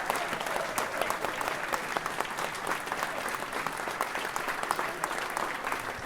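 Applause from a small crowd: many hands clapping at a steady, even level.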